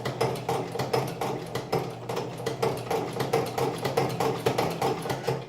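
1905 Singer 29-4 cobbler's patcher sewing machine, driven by an electric test motor, stitching through marine vinyl: a steady rhythmic clacking of the needle and stitch mechanism over the motor's hum.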